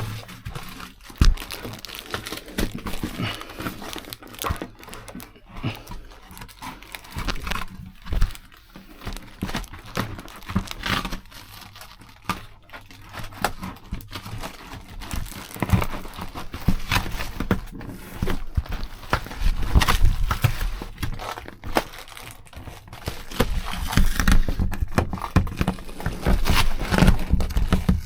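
Adhesive-backed sound-insulation material being handled and forced into place by hand: irregular crinkling, rustling and scraping with scattered light knocks. The material is sticky and does not want to slide.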